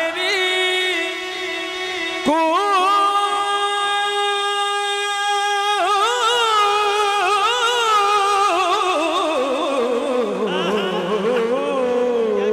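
A male naat reciter singing long, drawn-out notes with a wavering vibrato, unaccompanied by words the ear can pick out. A new phrase starts about two seconds in, and the melody slides down in pitch over the last few seconds.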